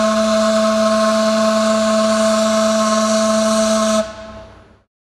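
A ship's horn sounding one long, steady blast that cuts off abruptly about four seconds in, with a brief echo after it.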